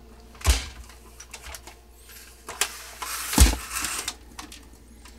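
Handling noise from a Kodak Carousel 5600 slide projector's plastic body as it is picked up and turned by hand: a thump about half a second in, scattered clicks and rattles, then a rough scrape with a sharp knock in the middle.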